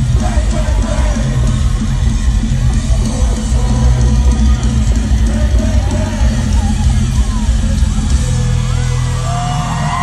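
Live rock band music, loud and heavy on bass and drums. About eight and a half seconds in, the drums drop away and leave held tones.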